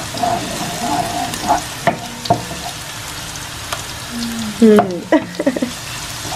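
Chopped garlic sizzling in oil in a nonstick frying pan while a wooden spoon stirs it, with a couple of sharp knocks of the spoon against the pan about two seconds in. A short cluster of high sliding pitched sounds, the loudest moment, comes a little past the middle.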